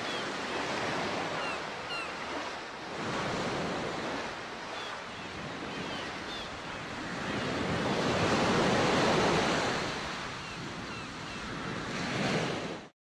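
Ocean waves surging and breaking, the wash swelling and falling over several seconds, with a few faint high chirps above it. It cuts off abruptly near the end.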